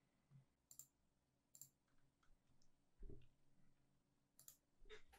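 Faint computer mouse clicks, a few single clicks spaced a second or more apart, with a soft low thump about three seconds in.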